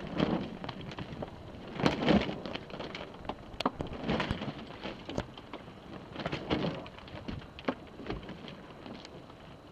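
Water slapping and sloshing against a sailboat's hull in short surges about every two seconds as the boat rolls in a calm, with scattered sharp clicks and knocks between them.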